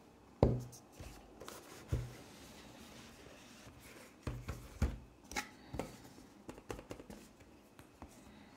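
Cardboard packaging being handled: a Blu-ray box set pulled out of its thin cardboard slipcase and both set down on a table. A sharp knock about half a second in is the loudest sound, followed by knocks near one and two seconds and a run of smaller taps and clicks through the second half.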